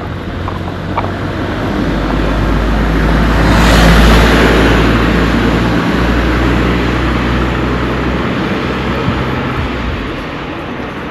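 A motor vehicle driving past close by: engine and road noise building to a peak about four seconds in, then fading away.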